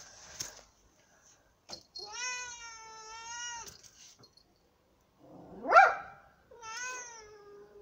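Domestic cat yowling at a dog in a standoff: one long drawn-out wailing yowl about two seconds in, a short sharp louder cry just before six seconds, and another falling yowl near the end. The yowls are a cat's threat call against the dog.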